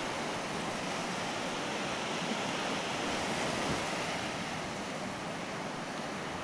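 Steady wash of surf breaking on a shallow sandy beach.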